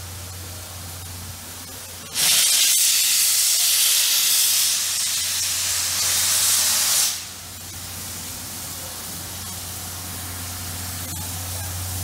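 Steam locomotive C61 20 blowing steam from its cylinder drain cocks: a loud hiss that starts suddenly about two seconds in and stops about five seconds later, with a low steady hum before and after it.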